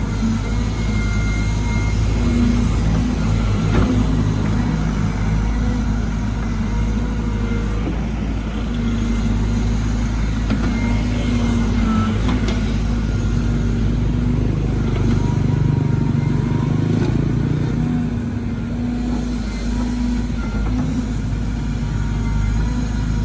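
Caterpillar 313GC excavator working: its diesel engine runs steadily under load while the hydraulics shift pitch, with a few brief knocks.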